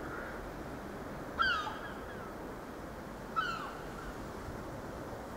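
A bird calling twice, two short harsh falling calls about two seconds apart, over a steady background hiss.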